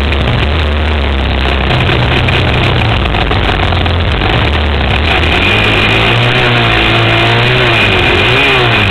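Sport quad's single-cylinder engine running under throttle, heard close up from the machine itself, with its revs rising and falling over the last few seconds. A steady rush of wind noise on the microphone runs under it.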